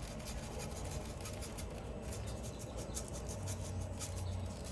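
Dry seasoning rub being applied to a slab of baby back ribs: a faint, steady run of quick scratchy rustles.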